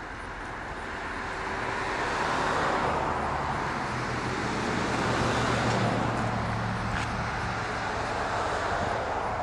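Road traffic: a vehicle passing, its rush of engine and tyre noise swelling over a few seconds and then easing off, over a steady low engine hum.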